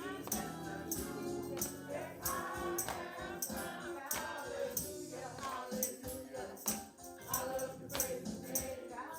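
Gospel choir singing with a tambourine shaken and struck on the beat, about twice a second.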